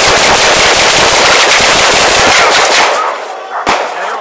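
A rapid volley of gunfire: many shots overlapping so fast they run together for about three seconds, then thinning out, with one last single shot near the end.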